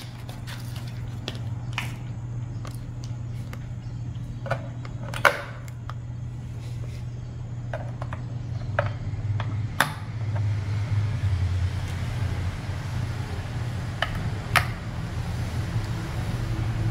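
A plastic blister pack of AAA batteries is handled and the batteries are pushed into a small ballistic chronograph's battery compartment: scattered small clicks and crinkles of plastic, a sharper click about five seconds in and again near ten and fourteen seconds. Under it all runs a steady low hum.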